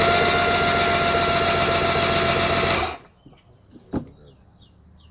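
1982 Mercury 115 hp inline-six outboard turned over on its electric starter: the starter whine rises as it spins up, holds steady, then stops about three seconds in, followed by a single click. The engine is cranked so a peak-voltage meter can read the input to the coil bank that gets no spark.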